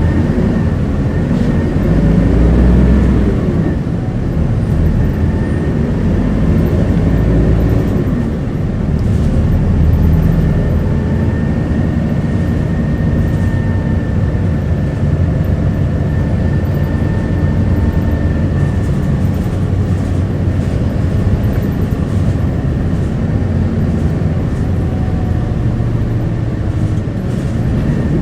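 Inside an Isuzu Erga city bus (QKG-KV290N1) on the move: the diesel engine and drivetrain hum steadily, and the engine note rises as the bus picks up speed, once near the start and again about eight seconds in. A faint high whine runs through the middle.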